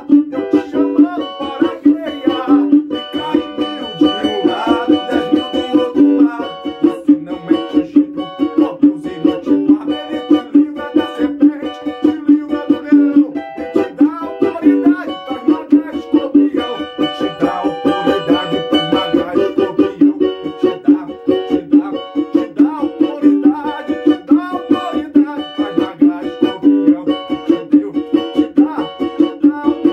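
Cavaquinho strummed in a fast, steady Pentecostal rhythm.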